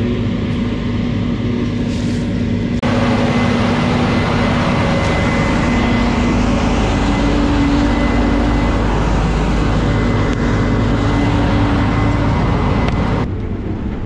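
Case IH combine harvester running steadily, a constant engine hum with a thin high whine over it. About three seconds in it becomes suddenly louder and fuller, heard right beside the machine; near the end it drops to a quieter hum.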